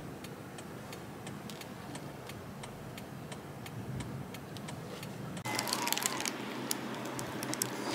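Faint, regular ticking, several ticks a second, over a low steady hum in a car's cabin. About five and a half seconds in it gives way to brighter clicks and soft tones.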